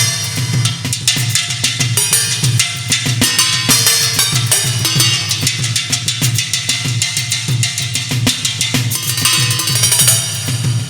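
Drum kit played in a fast, dense pattern of snare and bass drum strokes with cymbals.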